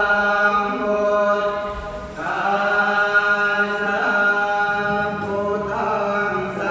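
Live band playing a slow passage of long held chords that change twice, about two and five and a half seconds in, with no drum beat.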